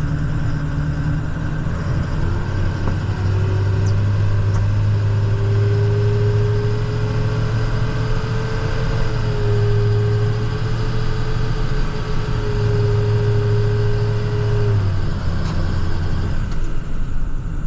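Snowplow truck's engine heard from inside the cab, pulling away and picking up speed about two seconds in, then holding a steady drone over road noise before easing off near the end.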